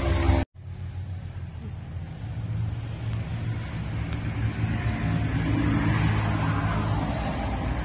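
Steady low rumble of a motor vehicle engine running, with a brief dropout about half a second in.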